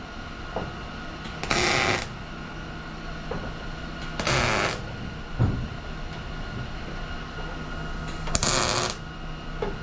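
Welder laying three short tack welds on sheet-metal hood steel, each a half-second crackle, spaced a few seconds apart, with a steady low hum between them.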